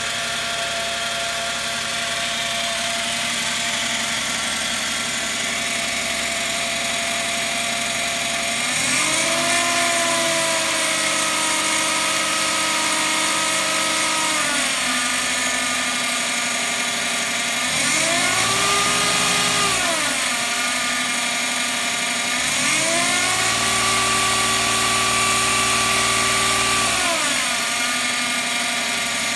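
Suzuki Wagon R MH21S's 660 cc three-cylinder engine idling, then revved three times and held at higher revs before settling back, the first and last holds several seconds long and the middle one short. The owner records it because of an abnormal noise from the car.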